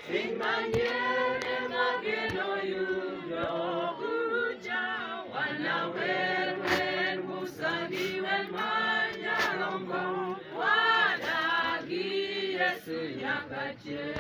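A choir singing together in harmony, several voices holding and changing notes over a steady low tone.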